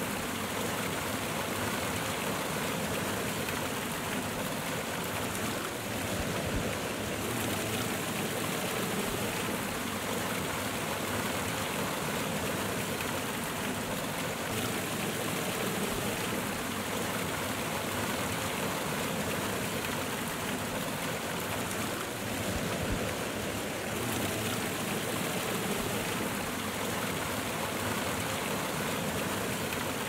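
Waterfall water cascading, a steady, even rush.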